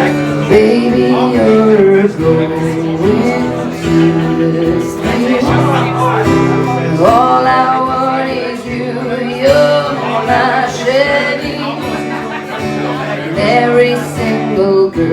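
A song played live on guitar, with a voice singing over it.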